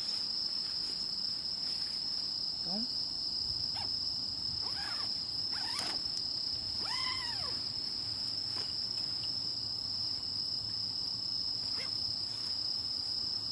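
Night chorus of crickets trilling in one continuous, steady high-pitched drone.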